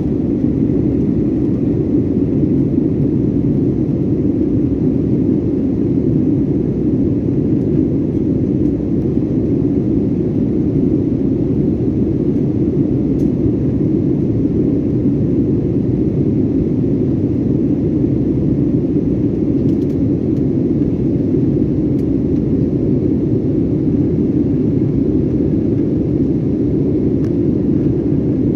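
Steady cabin noise of an Airbus A320-family airliner in the climb after takeoff: the even, low rumble of its jet engines and the air rushing past the fuselage, unchanging throughout.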